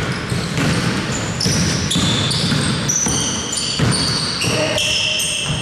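Indoor basketball game play: a basketball bouncing repeatedly on the court, with many brief high squeaks of players' sneakers on the floor at shifting pitches.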